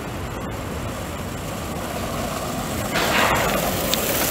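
Longboard wheels rolling on asphalt in a steady rumble, mixed with wind on the microphone. It gets louder about three seconds in, and a few sharp clicks follow.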